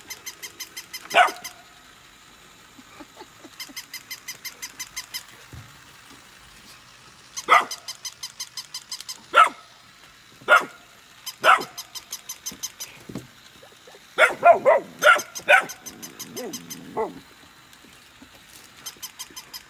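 Golden retriever puppies giving short, sharp barks, one at a time and then a quick run of several about two-thirds of the way in, over a rapid, even ticking from a walking plush toy dog's motor that starts and stops in short stretches.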